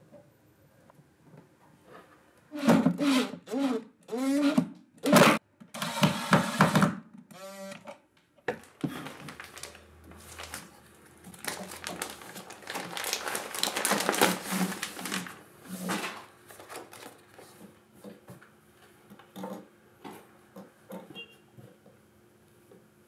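A few short, loud voice-like sounds with gliding pitch in the first seven seconds. Then a plastic bag crinkles and rustles for several seconds as it is opened to take out a heating blanket, followed by light handling taps on wooden boards.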